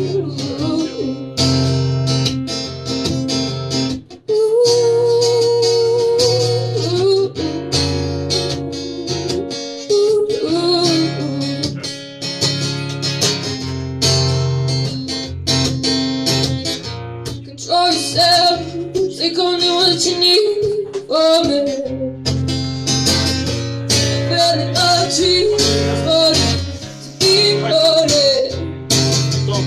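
Live acoustic guitar strummed in a steady rhythm, with a woman's voice singing held and gliding notes over it.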